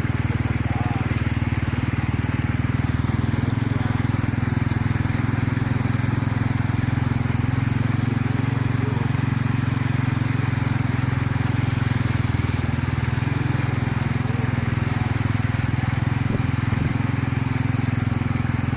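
Small motorcycle engine running steadily at an even speed.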